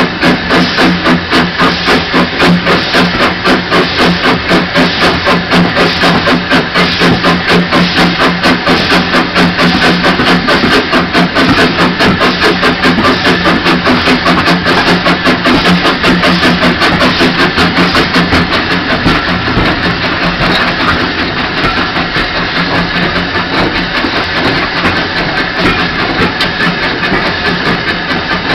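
LBSC A1X Terrier tank locomotive working steam, its exhaust chuffing in steady even beats with steam hissing around it; about two-thirds of the way through the beats become softer and less regular.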